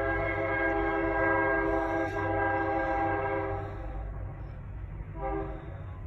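Freight locomotive air horn sounding a long blast of about four seconds, then a short blast a second and a half later, over the steady low rumble of the passing train. This long-then-short pattern is typical of the grade-crossing warning signal.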